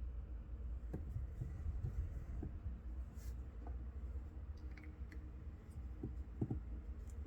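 A few faint, scattered clicks and taps of handling, with a short hiss about three seconds in, over a low steady hum.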